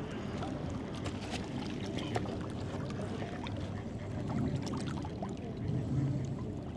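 Steady rush of moving water.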